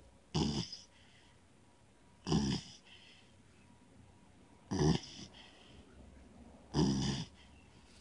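Sleeping Doberman Pinscher puppy snoring, four snores about two seconds apart.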